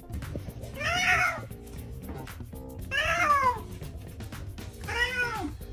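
Domestic cat meowing three times, about two seconds apart, each call rising and then falling in pitch.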